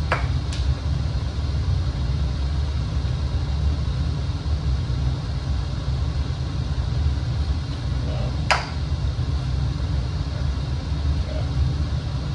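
A steady low rumble, with two sharp clinks of scrap metal parts being handled: one right at the start and one about eight and a half seconds in.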